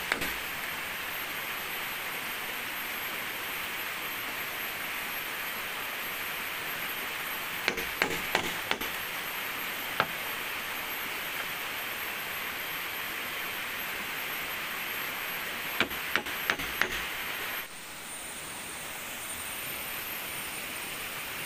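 Quick sharp knocks on the bamboo tree-house frame, in two short bursts of about four strikes and one single strike, over a steady rushing noise. The rushing noise drops and changes about eighteen seconds in.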